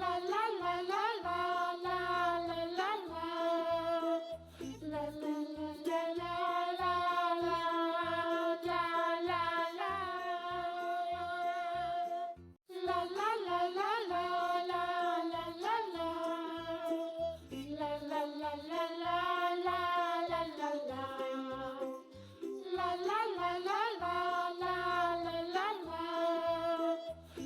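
Background children's song: a high, childlike voice sings a simple melody of held notes over light accompaniment with a steady beat, breaking off briefly about halfway through.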